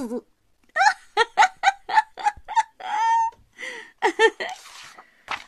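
A woman giggling: a run of short, quick laughs at about four a second, then a longer drawn-out one and a few more breathy laughs.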